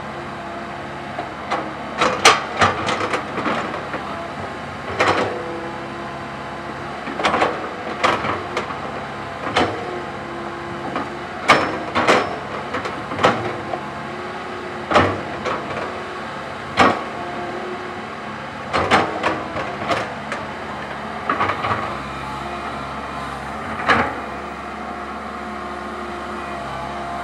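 Komatsu PC130 hydraulic excavator's diesel engine running steadily, with repeated sharp clanks and knocks in irregular clusters as its steel bucket digs into rocky soil.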